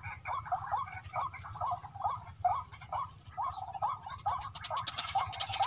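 Rail (tikling) calling: a steady series of short, upward-hooked notes, about three a second.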